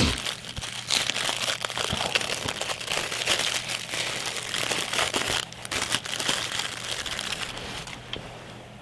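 Crinkly paper wrapping rustling and crackling as a pocket knife is unwrapped from it by hand. The crackling dies away near the end.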